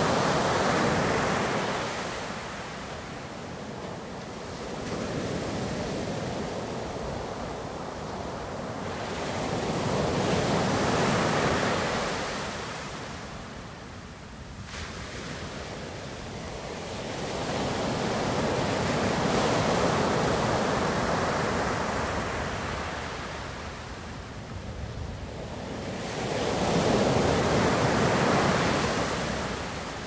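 Ocean surf: waves rushing in and washing back, the noise swelling and fading in slow surges about every eight to nine seconds.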